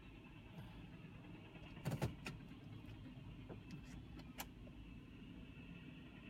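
Freight train of tank cars and covered hoppers rolling past: a steady low rumble with a few sharp metallic clicks and clanks, the loudest about two seconds in.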